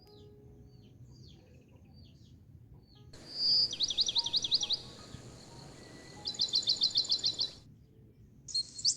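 Soft background music with birds chirping; about three seconds in, a bird sings two fast trills of rapidly repeated high chirps, each about a second long, louder than the music, and a short sharp call comes near the end.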